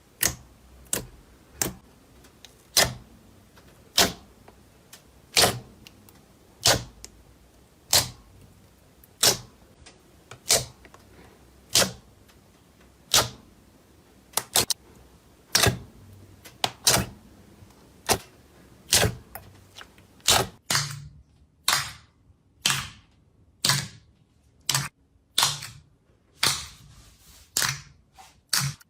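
Slime being pressed and squished, making sharp clicking pops of trapped air at an even pace of about one a second. Near the end the pops come faster, with a dull thud under each.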